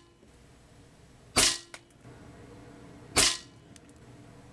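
Crosman Challenger .177 PCP competition air rifle firing two shots just under two seconds apart. Each shot is a sharp crack with a brief ring after it.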